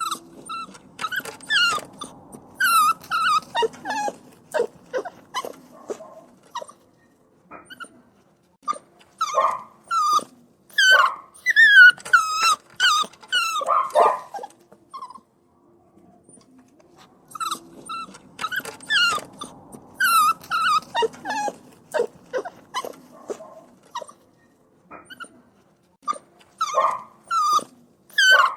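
Puppies whining and crying: high-pitched, wavering whimpers in bouts of rapid cries, with short pauses between the bouts.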